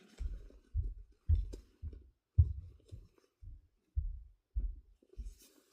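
A run of about ten muffled, low thumps, roughly two a second and slightly uneven.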